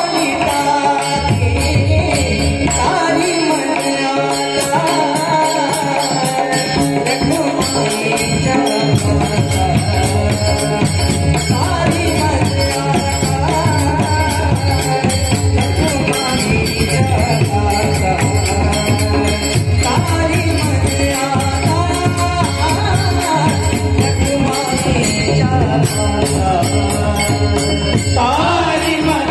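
Marathi Warkari abhang performance: a man singing a devotional melody over small hand cymbals and a drum keeping a steady beat.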